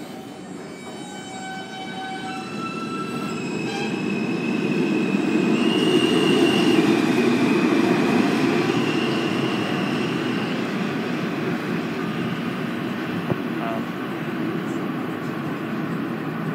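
Alstom-built R160A-1 subway train accelerating out of the station: its traction motors whine in a series of rising steps over the wheel-on-rail rumble. The rumble builds to its loudest about seven seconds in, then fades as the train pulls away down the tunnel.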